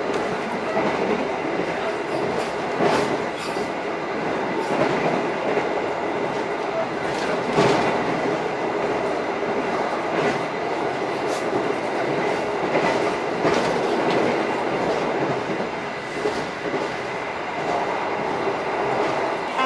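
Passenger train running on rails: a steady rumble with irregular clacks as the wheels pass over rail joints.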